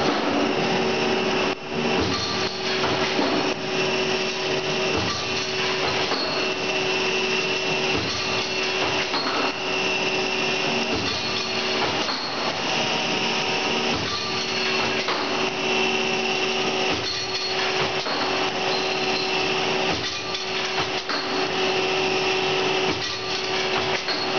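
WEEREN DH20 end finishing machine running as it faces and chamfers stainless steel set screws: a steady whirring hum with a held tone, broken by occasional clicks and brief dips.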